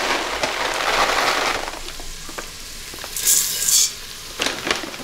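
Dry pearl couscous poured from a metal measuring cup into an Instant Pot's hot, oiled stainless insert on sauté, a dense pour-and-sizzle for about the first two seconds. After that a quieter sizzle continues, with a few light clicks, a brief high hiss about three seconds in and a couple of knocks near the end.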